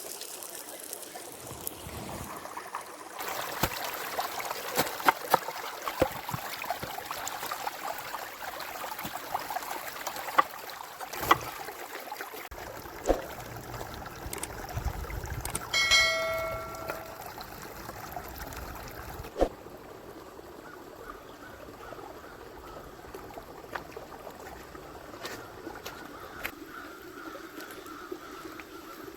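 A river flowing steadily, with scattered sharp clicks and knocks through the first half and a short bell-like metallic ring about halfway through.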